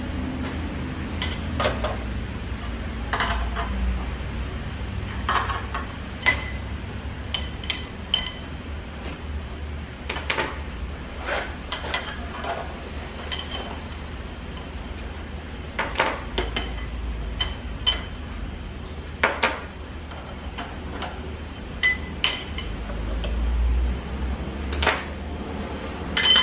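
Open-end steel wrench and steel hold-down clamps clinking on the cast-iron table of a metal planer as the clamps and nuts are worked loose: scattered sharp metal clinks at irregular intervals. A low rumble runs underneath and swells near the end.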